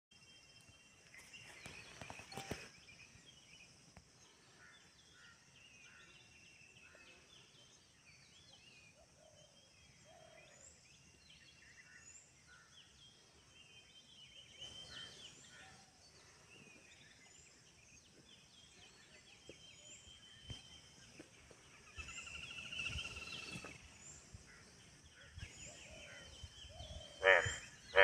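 Faint forest ambience: scattered short chirps and calls of several birds over a steady high hiss, with a louder sound near the end.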